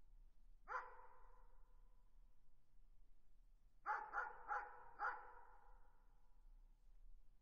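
A dog barking in the distance: one bark about a second in, then a quick run of four barks around four to five seconds in, each trailing off in an echo.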